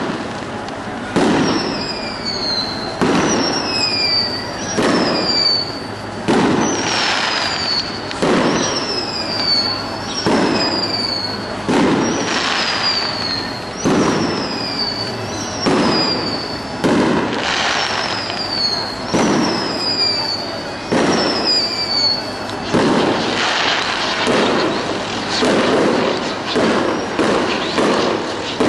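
Fireworks display: aerial shells bursting in a steady run of about one bang a second, most bangs trailed by a short falling whistle. The whistles stop about three-quarters of the way through while the bangs go on.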